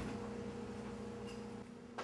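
Quiet room tone: a faint steady hum with light hiss.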